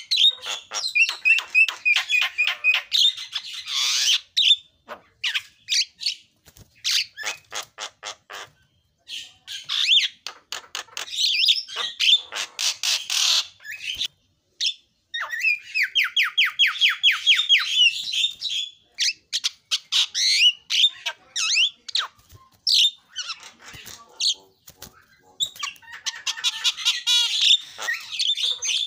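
Javan myna in full song: a loud, varied run of harsh notes, whistles and rapid rattles, with its mimicked phrases mixed in. There is a fast, even trill lasting a couple of seconds about halfway through, and a few short pauses between bouts.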